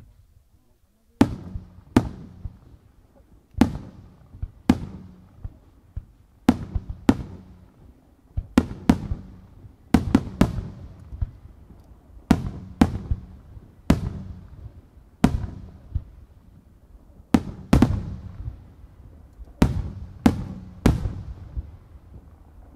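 Japanese aerial fireworks shells exploding in a rapid series of sharp booms, about one a second and some in quick pairs. Each boom trails off in an echoing rumble.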